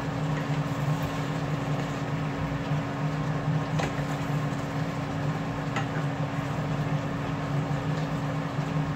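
Shrimp simmering in sauce in a steaming pan over a steady low hum, with light clicks of tongs and a spatula against the pan about four and six seconds in.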